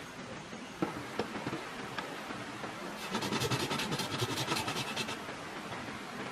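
A couple of light knocks, then about two seconds of rapid, rhythmic scraping.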